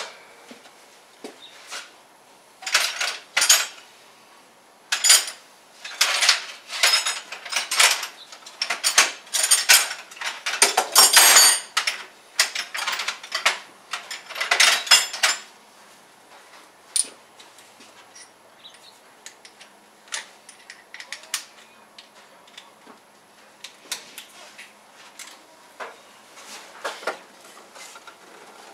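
Metal sockets and tools clinking and rattling while someone rummages for a socket adapter: a dense clatter through the first half, then scattered clicks.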